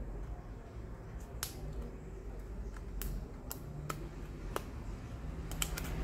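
A handful of sharp light clicks and ticks, scattered and then coming several in quick succession near the end, over a low steady rumble: a microwave oven control board and its flat ribbon cable being handled.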